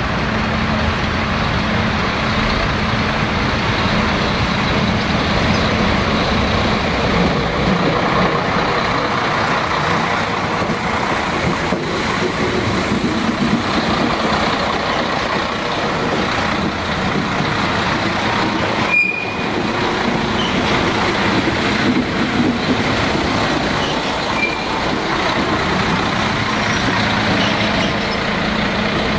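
Diesel multiple-unit railcars running slowly past with a steady engine drone and a low hum, along with wheel and running noise on the track.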